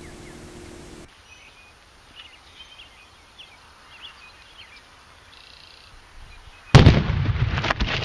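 A black powder charge goes off inside a large log to split it: one sudden loud blast nearly seven seconds in, followed by a rough tail with crackles. Birds chirp faintly before the blast.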